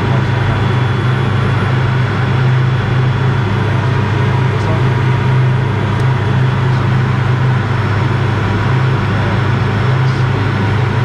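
Steady cabin noise inside a Cirrus SF50 Vision Jet in flight: the single Williams FJ33 turbofan and rushing airflow, a broad even rush over a steady low drone.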